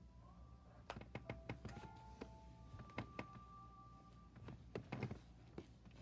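Soft knocks and taps from handling close to the recording phone, clustered about a second in and again near the end, over faint held musical notes.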